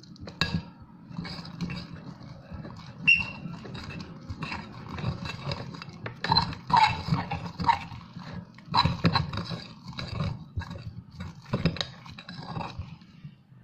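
Slime made from glue and Ariel detergent being stirred and worked in a bowl with a spoon: irregular sticky squelches and scrapes, with sharp knocks of the spoon against the bowl.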